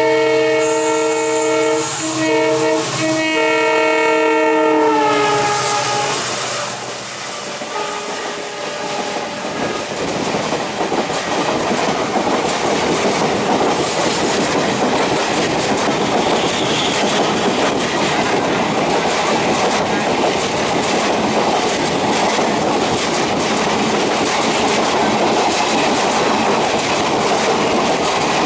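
An Indian Railways WDP-4B diesel locomotive sounding a multi-tone horn as it approaches, the horn briefly broken twice and dropping in pitch as the locomotive goes past. Then the express's coaches pass close by at speed with a steady rush and rapid clickety-clack of wheels over rail joints.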